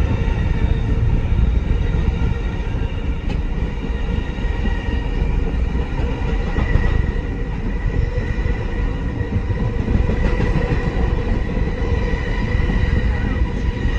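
Vintage BMT Standard subway car running along the track, heard from inside at the front window: a steady, loud rumble of wheels on rail with a steady whine running through it.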